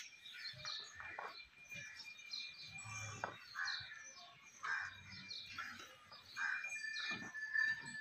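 Many small birds chirping and twittering at once in a busy, overlapping chatter, with a couple of soft low thuds about three and five seconds in.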